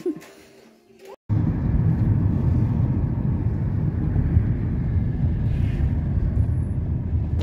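Car cabin noise while driving: a steady low rumble of road and engine noise heard from inside the car, cutting in suddenly about a second in.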